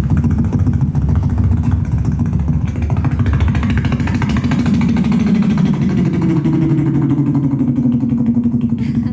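A beatboxer's vocal imitation of a helicopter: a rapid fluttering pulse, like rotor blades, over a low drone that swells and bends in pitch partway through.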